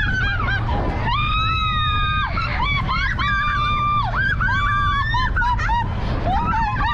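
Several riders screaming and whooping in long high-pitched cries, one after another, with thrill and fright as the vehicle speeds and spins. Under them runs the steady low rumble of the moving vehicle.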